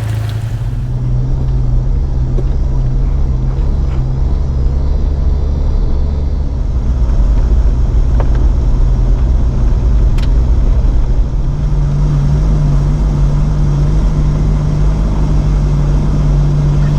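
A Jeep driving, its engine and drivetrain making a steady low drone. The engine note steps up in pitch about two-thirds of the way through.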